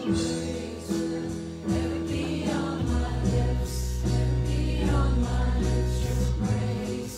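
Live worship song: a woman singing over electric keyboard and electric bass guitar, with a steady high percussion beat. Strong low bass notes come in about three seconds in.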